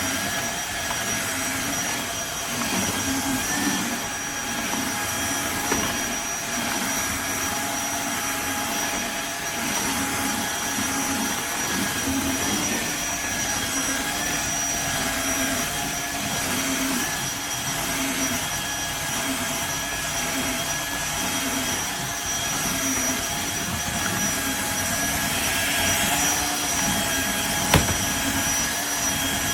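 Tineco iFLOOR 3 Breeze cordless wet-dry floor cleaner running steadily: its motor gives a constant high whine over a rough low hum. There is one sharp click near the end.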